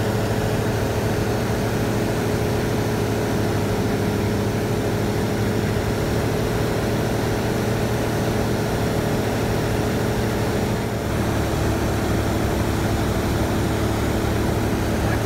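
Renault Kwid four-stroke car engine driving the propeller of a Mistral ultralight in flight, heard from the cockpit as a steady drone with air rushing past. About eleven seconds in, the drone drops slightly in pitch and grows a little fuller.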